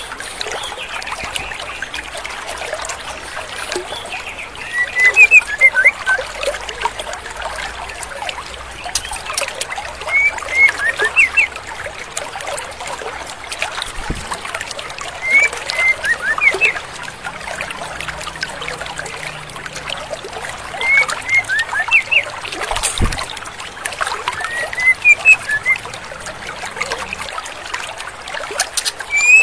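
Female white-rumped shama (murai batu) giving short bursts of quick chirps about every five seconds, six times, over the steady rush of a stream. It is a female's call used as a lure to stir up young males.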